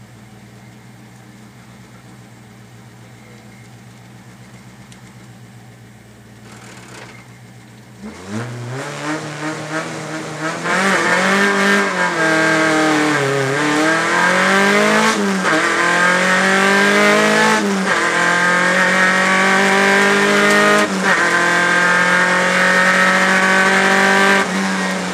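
Rally car engine heard from inside the cabin: idling steadily for about eight seconds, then revving hard as the car pulls away from the stage start. It accelerates through the gears, the engine note rising and breaking off at each shift, and the revs drop back briefly near the end.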